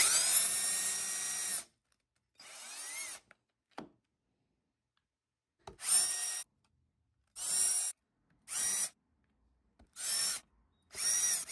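Cordless drill with a small twist bit drilling out the retaining posts on the back of a Chevrolet bowtie emblem, running in bursts. It starts with one run of about a second and a half, then makes six shorter runs of under a second each.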